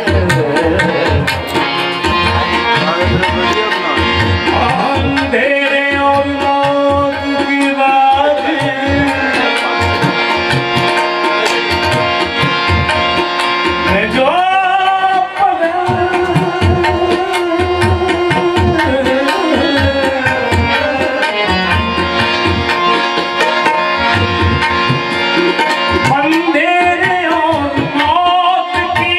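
Tabla played in a steady, continuous rhythm under a harmonium holding chords, with a man singing over them at times, mainly near the middle and near the end.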